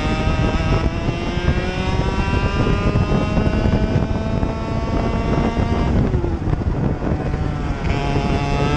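Racing kart's engine heard from onboard, running hard at full throttle with its pitch climbing steadily for about six seconds as it pulls up through the revs. The pitch falls off sharply as the revs drop, then climbs again near the end as it picks back up.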